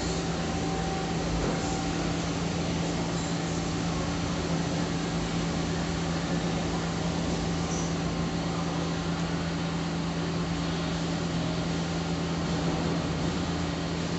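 Steady low hum of a powered-up Romi C420 CNC lathe standing idle with its spindle stopped.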